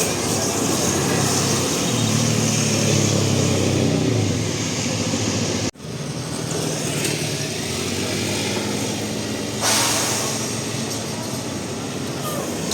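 Diesel engine of a large bus running close by, its low note falling away about four and a half seconds in. The sound cuts out for an instant just before halfway, and a sudden loud hiss starts about ten seconds in.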